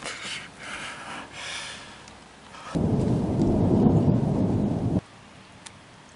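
A loud, deep rumble of thunder that breaks in suddenly a few seconds in and cuts off abruptly about two seconds later. Before it come surges of rain noise.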